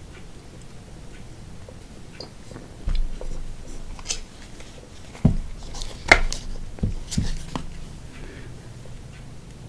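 Crunching bites into crispy fried chicken wings, with a handful of sharp crunches clustered a few seconds in.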